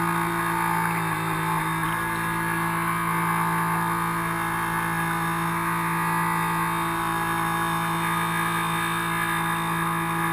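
The 380-size brushed electric motors of a radio-controlled model harbour boat running at a steady speed, giving an even, unchanging motor whine heard from on board.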